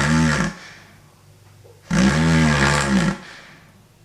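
Balloon-and-pipe airway model snoring: air forced through it makes the balloon, standing in for the soft palate and tongue base, vibrate in a rasping, snore-like buzz. It comes in breath-like bursts of about a second, one ending about half a second in and the next running from about 2 to 3 seconds.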